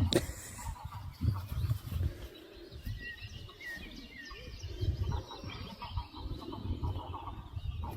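A few short bird chirps about three to four seconds in, over uneven low rumbling noise.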